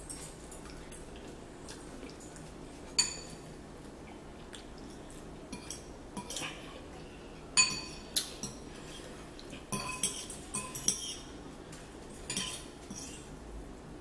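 Metal forks clinking against bowls while noodles are scooped and twirled: a scattering of short, sharp, ringing clinks, most of them bunched in the second half.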